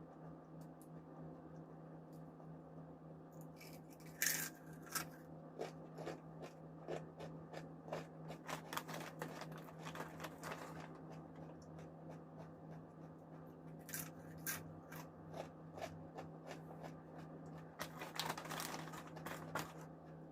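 Close-miked crunching of crisp chip snacks being bitten and chewed, in bursts of sharp crackles that are loudest about four seconds in and again near the end, over a steady low hum.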